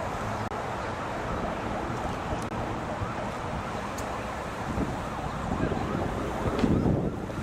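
Street noise of a black stretch SUV limousine driving past, with wind rumbling on the microphone. The sound swells near the end as the vehicle comes closer.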